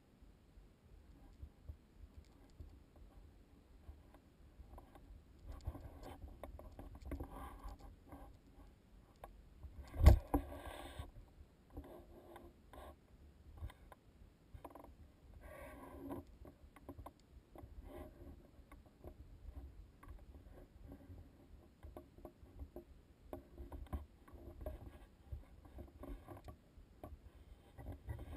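Irregular scuffs, clicks and rustles of a hiker moving over loose rock, with one sharp knock about ten seconds in.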